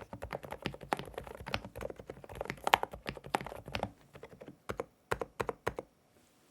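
Typing on an Epomaker TH108 Pro mechanical keyboard with Sea Salt Silent switches: a quick run of keystrokes that thins to a few separate presses and stops about six seconds in.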